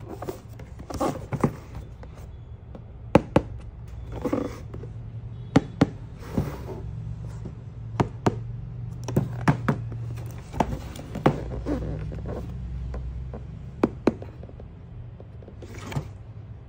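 Hands handling a cardboard RC car box: a scatter of sharp taps and knocks of fingers on the cardboard, with a few brief sliding rustles, over a low steady hum.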